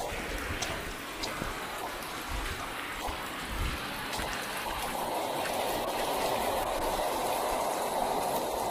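Rain falling and muddy runoff water flowing along a dirt street and its gutter: a steady rushing hiss that grows somewhat louder about halfway through.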